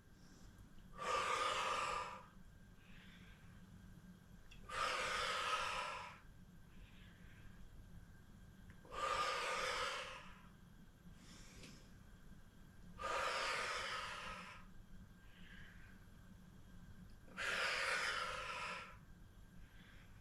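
A woman's forceful breaths out through the mouth while she holds a Pilates leg lift: five long exhales about every four seconds, with faint short inhales between them.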